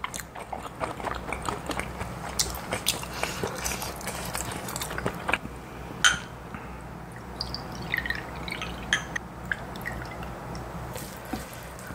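Soju poured from a glass bottle into a small shot glass, the gurgle rising in pitch as the glass fills, amid scattered light clicks.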